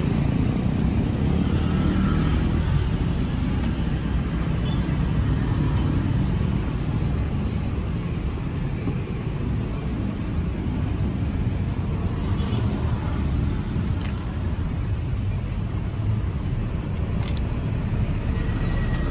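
Steady low rumble of road traffic, with a couple of faint clicks late on.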